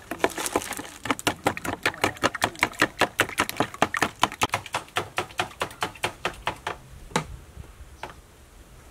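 Metal spoon beating seasoned raw eggs in a bowl, clicking against the bowl about six times a second. The beating slows near the end and stops with a last tap or two.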